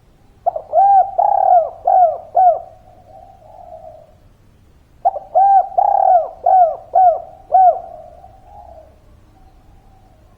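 Spotted dove (tekukur) singing its 'kuk 3' song: two phrases about four and a half seconds apart, each a quick run of loud arched coos that trails off into softer cooing.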